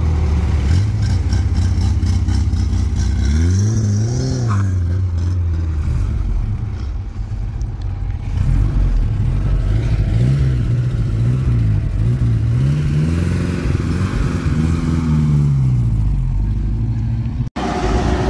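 Car engines revving as cars pull away: a single rev rising and falling about four seconds in, then a run of repeated throttle blips over several seconds. The sound cuts out sharply for a moment near the end.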